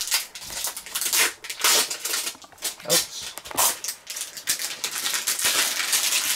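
Clear plastic film crinkling and rustling in irregular bursts as it is peeled off and handled on a new Samsung Gear VR headset.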